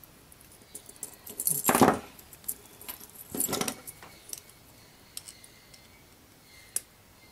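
Small metal chain and a drill chuck key clinking and jingling as they are handled, with light metallic clicks of pliers. There are two louder rattles, about one and a half and three and a half seconds in, and a single sharp click near the end.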